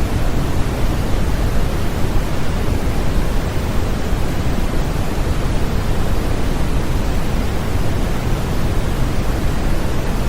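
Continuous generated sleep-aid noise, an even, unchanging hiss with most of its weight in the low end, like pink noise.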